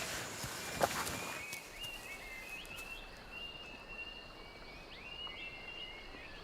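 Quiet wild outdoor ambience. A couple of rustles and a sharp click come in the first second or so. Then thin, high, chirping calls of small animals run on steadily, broken by quick little upward flicks.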